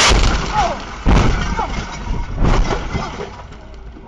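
Multi-vehicle highway car crash heard from a dashcam: a sudden loud smash with glass breaking and debris striking. Two more heavy impacts follow, about a second in and again near two and a half seconds, then it dies away.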